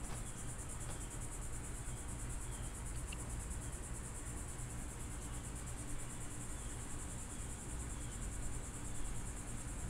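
Insects trilling steadily in a high, fast-pulsing drone over a low steady hum.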